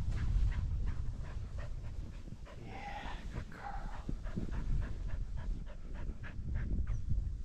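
Dog panting quickly as it runs through deep powder snow, with a brief excited yip about three seconds in, over a steady low rush of wind and snow.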